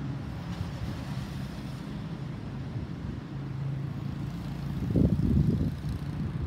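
Distant, steady low rumble of a Boeing 737-800's CFM56-7B jet engines as the airliner flies away. A gust of wind buffets the microphone about five seconds in.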